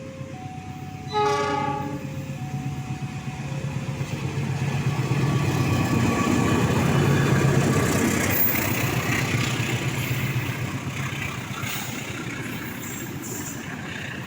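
Railway level-crossing warning signal sounding its alternating two-note tone. About a second in, a train horn blasts once briefly. A train then passes, its rumble building to a peak midway and slowly easing.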